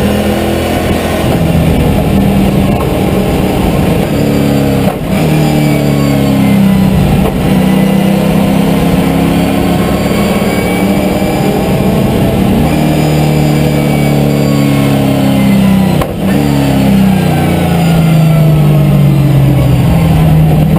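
Holden V8 Supercar's V8 engine under hard racing load, heard from inside the stripped race-car cabin. The engine note rises and falls with the revs and breaks briefly twice, about five seconds in and again about sixteen seconds in.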